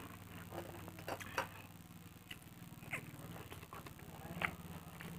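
A person chewing a mouthful of pakhala (watered rice): a handful of soft wet mouth clicks and smacks, scattered a second or so apart, over a steady low hum.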